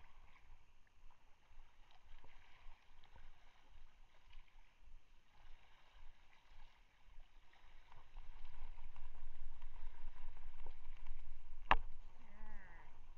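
Sea water washing against breakwater rocks, with a low rumble that grows louder about eight seconds in, and a single sharp click near the end.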